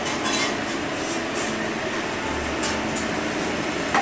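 Steady hiss and hum of a working restaurant kitchen at the stove, with a few faint, brief ticks.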